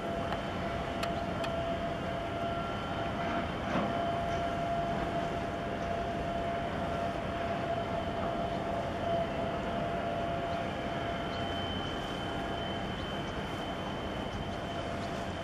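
Steady drone of a large container ship's machinery as it passes, with a held whine under a wash of noise.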